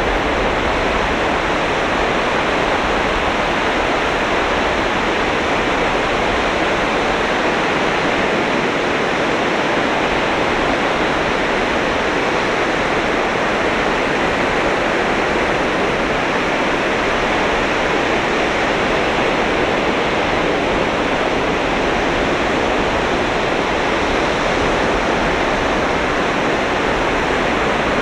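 Sea surf breaking on a sandy beach, heard as a steady, even rush of waves with no single break standing out.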